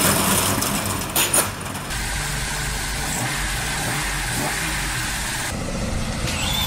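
Car engine running and revving, with two sharp loud bursts about a second in.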